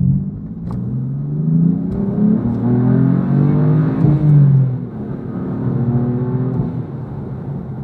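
1955 Buick Roadmaster's 322 cubic-inch nailhead V8 running and being revved, its pitch rising and falling several times.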